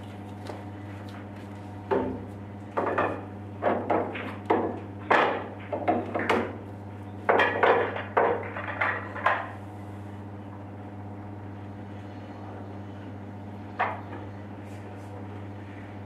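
Pool balls clacking against each other and knocking on a wooden triangle rack as they are gathered and racked: a quick run of sharp clacks for several seconds, then a single knock later on. A steady low hum runs underneath.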